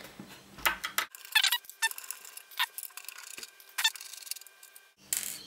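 Clicks and small rattles of an aluminium RAID drive enclosure being handled as one of its door panels is worked off, with a handful of sharp clicks spread through.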